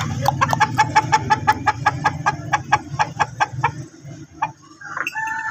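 Aseel rooster clucking in a fast, even run of short notes, about six or seven a second, over a low steady hum. The clucking stops about four seconds in, and a longer drawn-out call, the start of a crow, begins near the end.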